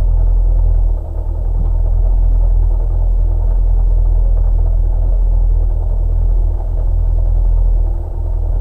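Škoda 130 LR rally car's rear-mounted four-cylinder engine idling, a steady low rumble heard from inside the cabin, dipping briefly about a second in and again near the end.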